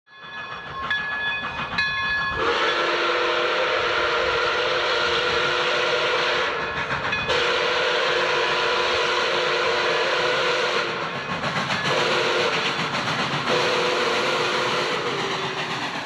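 Pere Marquette 1225, a 2-8-4 Berkshire steam locomotive, blowing its chime whistle as it approaches with a train: a few short toots, then four blasts, the third shorter than the rest, over the steady chuffing and running noise of the train.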